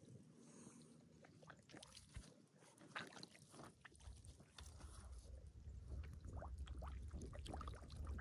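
Faint splashing and sloshing of shallow field water, many small irregular splashes, with a low rumble coming up from about four seconds in.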